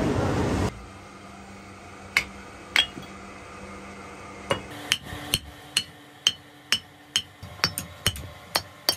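Hand hammer striking a freshly cast metal tractor differential body to knock off the moulding sand. Each blow is a sharp, ringing metallic knock: two single blows, then from about halfway a steady run at roughly two a second. A steady noise cuts off less than a second in.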